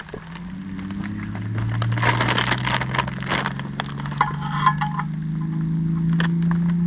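Plastic bag crinkling and dry pasta rattling as it is poured into the pot, loudest about two to three and a half seconds in. This is followed by a short clink of metal tongs, over low sustained notes of background music.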